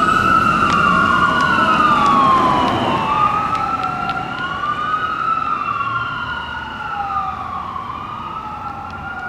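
Wailing siren of a 2016 Spartan Metro Star fire engine responding code 3, slowly rising and falling in pitch and growing fainter as the truck drives away.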